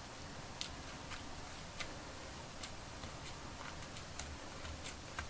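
Faint, irregular small clicks and ticks from a small screwdriver tip working doll hair in behind an elastic band over a plastic bottle-cap bun form, over a low steady hiss.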